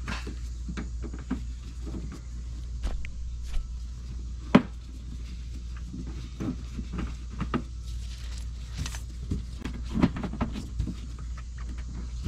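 Irregular clicks, taps and knocks of a Torx screwdriver and hands working screws out of a plastic wheel-well panel, with one sharper knock about four and a half seconds in. A low steady hum runs underneath.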